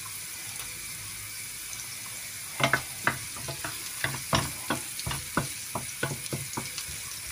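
Diced green pepper sizzling gently in oil in a frying pan. From about two and a half seconds in, a wooden spoon stirs it, knocking and scraping against the pan about three times a second.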